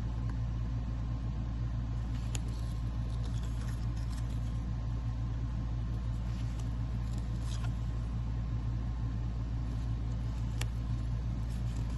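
A steady low hum throughout, with a few faint clicks and soft swishes of trading cards being slid and flipped through by hand.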